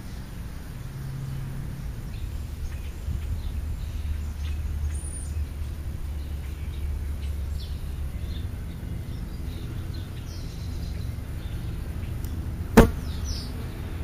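Outdoor yard ambience: a steady low rumble with faint, scattered songbird chirps, and one sharp knock near the end that is the loudest sound.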